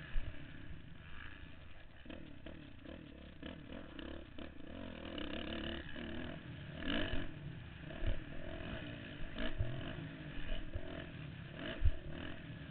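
Motocross bike engine revving up and down as the bike is ridden over a dirt track, heard from the rider's helmet with wind on the microphone. Several sharp knocks come through as the bike hits bumps.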